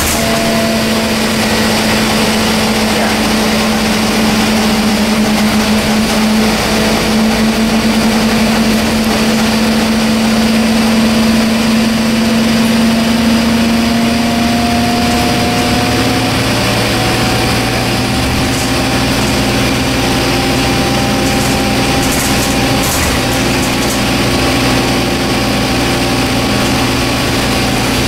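Scania N230UD double-decker bus running along the road, heard from inside the passenger saloon: a steady diesel engine drone with road noise. Its tone rises slowly, then shifts and settles about halfway through, with a deeper hum coming in.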